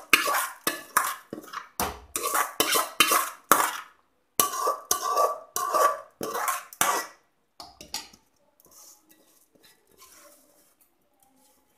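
Steel spoon scraping soaked rice out of a metal bowl, quick repeated strokes of metal against metal, about three a second. The scraping stops about seven seconds in, leaving only faint scattered clinks.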